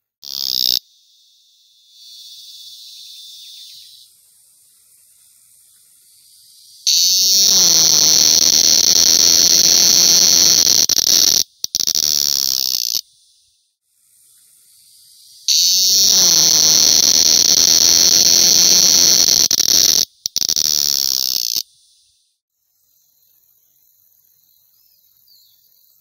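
Cicada calling close by: a loud, shrill, steady buzz in two long bouts of about six seconds each, each broken by a brief dropout. A short burst comes right at the start and a fainter buzz follows soon after.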